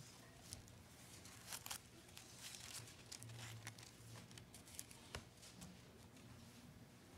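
Faint rustling and crinkling of thin Bible pages being handled and turned, a few soft scattered crackles over a low steady hum.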